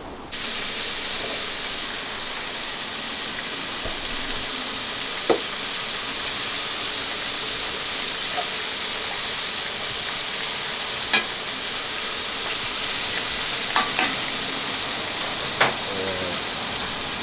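Battered chicken pieces deep-frying in a pot of hot oil, a steady bubbling sizzle. A few sharp clicks stand out over it, a pair of them close together about two-thirds of the way through.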